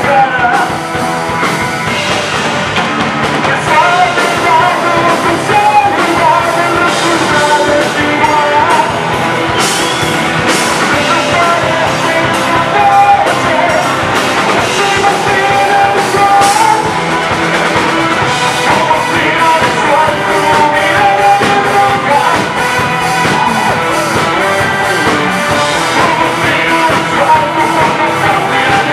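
Live rock band playing loud and steady: electric guitar, bass guitar and drum kit, with a singer's voice over the band through the PA.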